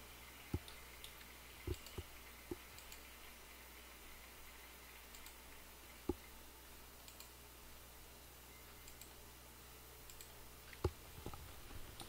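Computer mouse clicks: about seven short, sharp clicks at irregular intervals, over a faint steady low hum.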